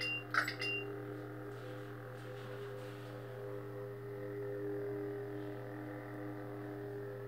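Ultimate Works Bors Dragonslayer lightsaber's sound board: two short beeps in the first second as the blade changes colour, then the saber's steady idle hum.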